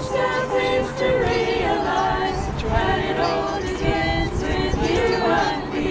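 Amateur choir, mostly women's voices, singing a cappella in several parts, with held notes that move together from chord to chord.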